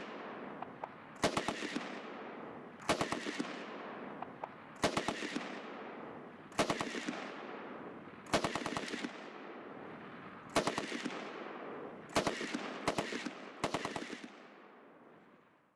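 Automatic gunfire from a machine gun in short bursts of a few rounds each, about nine bursts one and a half to two seconds apart, each followed by a rolling echo. The last three bursts come closer together, and the sound fades out near the end.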